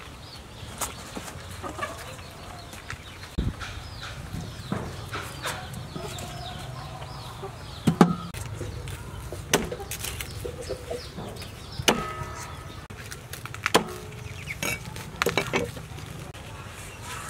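Chickens clucking, with sharp snaps and knocks every second or two as vegetables are trimmed and peeled by hand; the loudest snap comes about eight seconds in.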